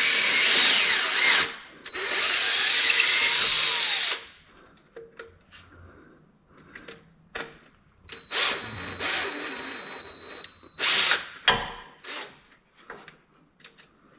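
Power drill boring a hole into the car's oil pan for a punch-and-tap oil-return fitting. It runs in bursts: two long runs with the motor's pitch wavering, a pause with small clicks, then another run with a steady high whine that ends in a short burst.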